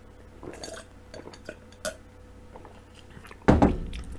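A few quiet gulps of milk from a drinking glass, then a sudden loud knock with a deep boom about three and a half seconds in, typical of the glass being set down on the desk.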